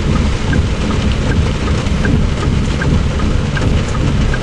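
Steady, loud rain noise mixed with a deep rumble, typical of a car driving in heavy rain on flooded roads, with faint light ticks about every half second.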